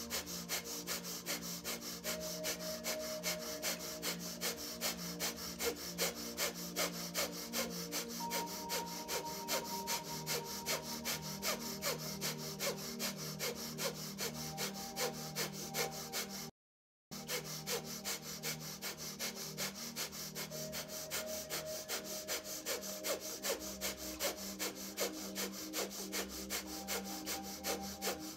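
Breath of fire: rapid, forceful exhales through the nose at about two to three a second, each driven by a sharp inward pull of the belly, with a quick passive inhale between. The sound cuts out completely for about half a second a little past the middle.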